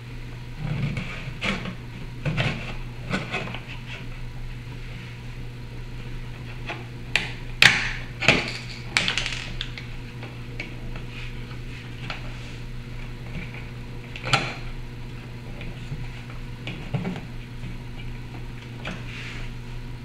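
Thin sheet-metal support brackets for an old-work electrical box being worked into a drywall opening: scattered metal clicks, scrapes and small knocks. The loudest are a quick run of sharp clinks about eight seconds in and a single sharp one about fourteen seconds in.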